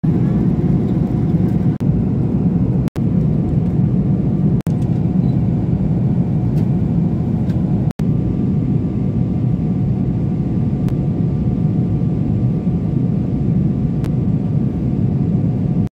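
Steady rumble of an airliner cabin in flight: engine and airflow noise. It cuts out for an instant a few times.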